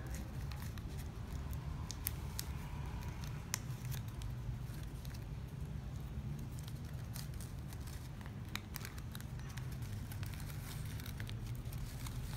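Shiny plastic ribbon rustling and crackling as fingers thread and weave it, with scattered sharp clicks, over a steady low hum.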